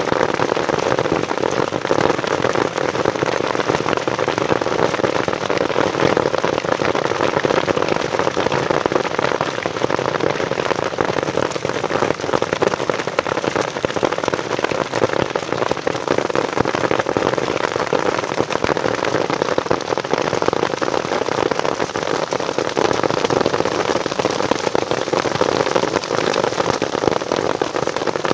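Hail and rain pelting grassy ground, a steady dense patter of countless small hits.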